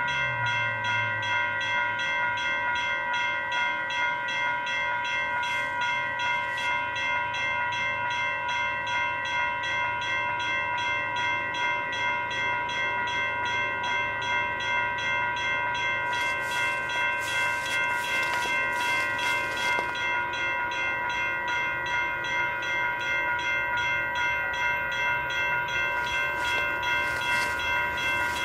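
Railroad grade-crossing warning bell ringing in a rapid, even rhythm, signalling an approaching train.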